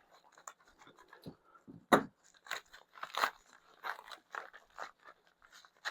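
Shipping packaging being unwrapped by hand: scattered crinkles, scrapes and small clicks, with a sharper click about two seconds in.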